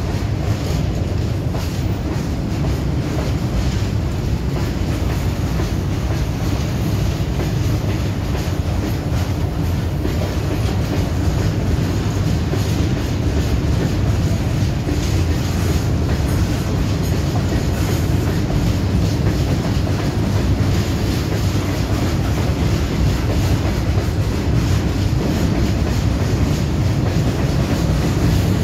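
Covered goods wagons of a long freight train rolling past at speed: a steady, loud rumble of steel wheels on the rails, with a clatter of wheels over the rail joints.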